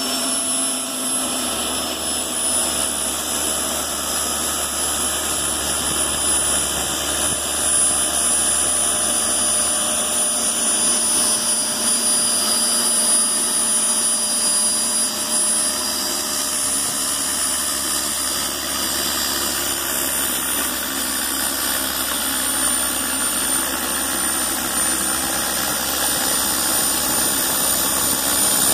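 Rotorway JetExec's turbine engine running steadily on a ground test: a high-pitched turbine whine that drifts slowly lower over a steady rushing noise, getting a little louder about eight seconds in and again near the end.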